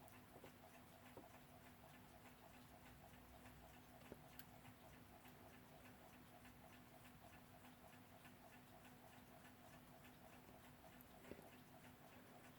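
Weltime mechanical alarm clock movement ticking faintly and evenly, several ticks a second: the freshly fitted balance wheel and hairspring are swinging and the escapement is running.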